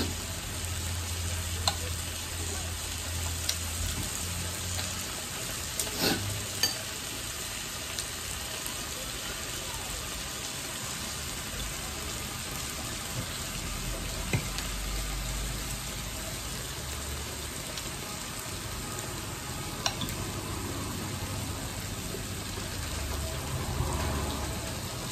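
Beef rolls wrapped around enoki mushrooms sizzling steadily on a tabletop grill plate, with a few light clicks scattered through.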